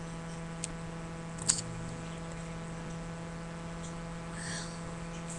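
Steady low electrical hum, with a faint click under a second in and one short, soft sound about a second and a half in.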